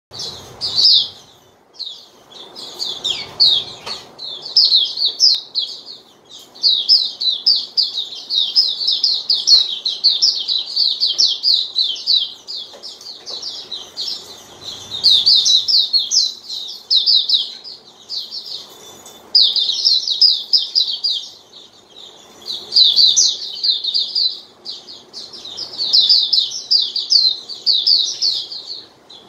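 White-eye (pleci, Zosterops auriventer) singing in fast, high twittering phrases a few seconds long with short breaks between them.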